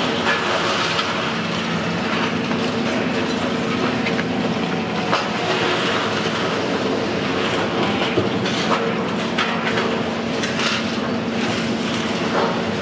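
Steady mechanical rumble with a low hum and scattered small clicks.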